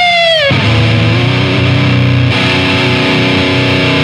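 Distorted electric guitar played through a Marshall valve amp into a close-miked Marshall 4x12 cabinet loaded with Celestion speakers. A held, bent lead note is released downward about half a second in, then a low distorted chord rings on steadily.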